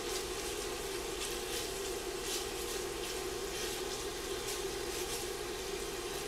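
Chopped smoked bacon sizzling steadily as it fries over medium-high heat in an enameled Dutch oven, rendering its fat as it browns. A steady hum runs underneath.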